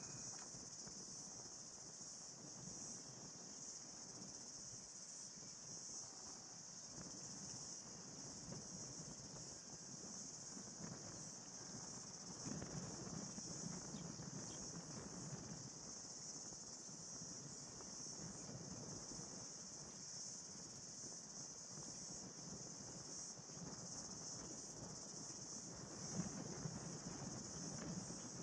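Faint, steady high-pitched chirring of insects over a low background rumble that swells a little around the middle and near the end.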